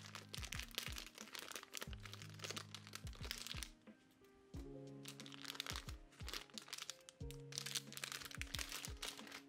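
Thin clear plastic bag crinkling and rustling as fingers handle it and pull it open, with a brief lull about four seconds in. Lofi background music with soft sustained bass notes plays underneath.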